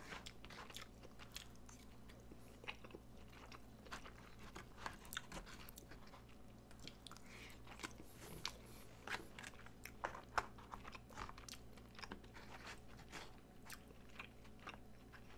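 Close-miked chewing of a mouthful of loco moco (rice, hamburger patty and gravy): irregular soft, wet mouth clicks and smacks, several a second, over a faint steady low hum.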